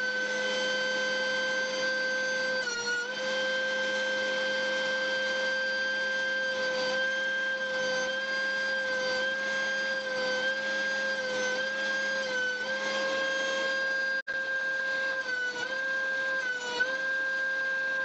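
DeWalt benchtop thickness planer running with a steady high whine, its pitch dipping briefly several times as the cutterhead takes load planing boards.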